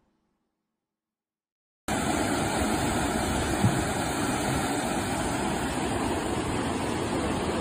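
Silence for about the first two seconds, then an abrupt cut into the steady rushing of a swollen, muddy river in flood, with one brief bump a little later.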